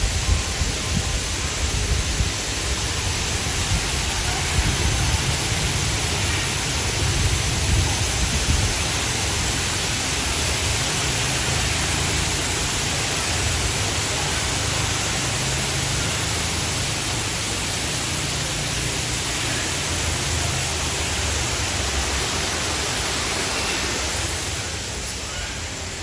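Steady, dense rushing noise with an uneven low rumble underneath, easing off a little near the end.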